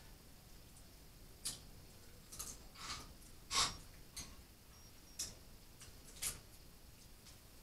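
Eating sounds from a seafood boil: about seven short clicks and smacks of shells being picked apart and food being chewed, the loudest a little past the middle.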